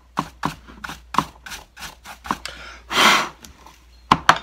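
A small brush scrubbing the plastic housing of a chainsaw in short quick strokes, about two or three a second, with one longer, louder swish about three seconds in. Two or three sharp clacks come near the end.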